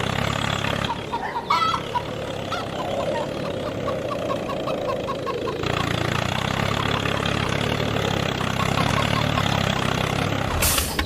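Small motor of a miniature homemade construction vehicle running with a steady low hum, with chickens clucking in the background.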